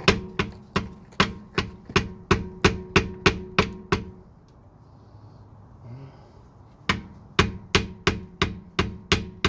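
Rapid hammer blows on the Jeep ZJ's Dana 35 rear differential cover, about three a second, each with a metallic ring. A pause of about three seconds, then the hammering resumes: trying to break loose a cover stuck on with sealant.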